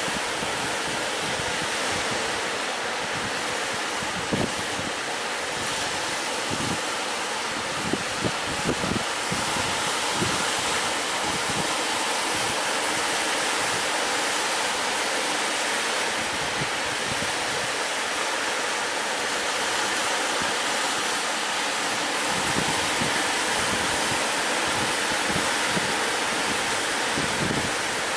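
Steady rush of sea surf and wind, with the wind buffeting the microphone in a few short low thumps.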